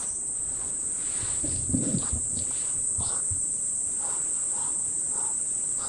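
Steady high-pitched chorus of summer insects. A low thump comes just under two seconds in, and a few faint short chirps follow later.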